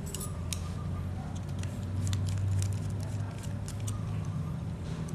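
Small scattered clicks and taps as the metal parts of a partly stripped model two-stroke engine are handled, over a low background rumble that swells about two seconds in.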